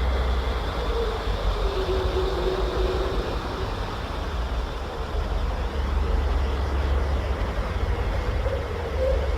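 A deep, steady rumble with a faint hum above it that slowly drifts up and down in pitch.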